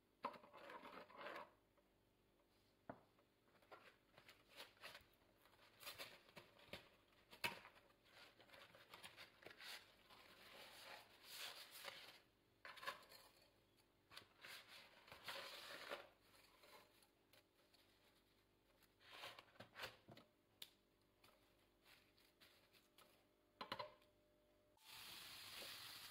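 Quiet kitchen handling sounds: a spoon scraping and tapping in a pot of boiling water, and dry spaghetti going into the pot, heard as irregular scrapes and clicks. About a second before the end, a steady sizzle starts as chopped bacon begins frying in a pan.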